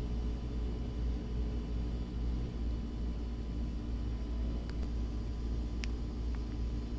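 A running refrigerator, its newly fitted Embraco reciprocating compressor humming steadily and evenly, with a faint click near the end.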